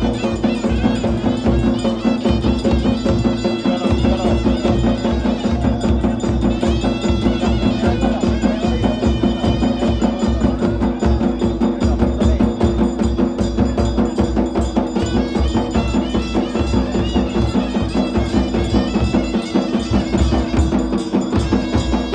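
Traditional procession music: drums beating a fast, steady rhythm with bells, over a held drone and a wavering melody line.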